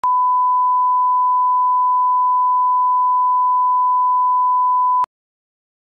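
Steady 1 kHz line-up test tone played with SMPTE colour bars, the reference tone for setting audio levels at the head of a tape. It holds one unchanging pitch for about five seconds, then cuts off abruptly.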